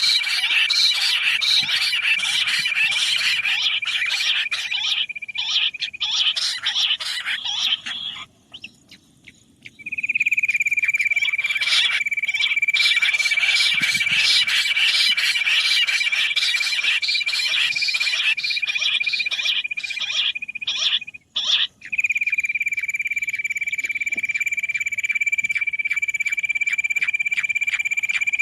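Quail calls played back as a hunting lure: a dense, rapid trilling chorus over a steady high whistle-like tone. It breaks off twice, briefly.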